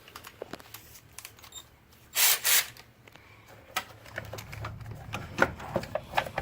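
Hand tools working a 17 mm bolt: a socket wrench and metal tools clicking and clinking in scattered sharp strikes, with a louder rasping rattle about two seconds in.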